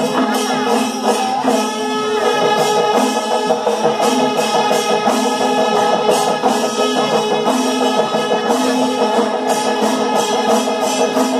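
Chenda melam: a Kerala temple percussion ensemble of chenda drums and ilathalam hand cymbals playing a dense, steady rhythm, with long held tones sounding over it.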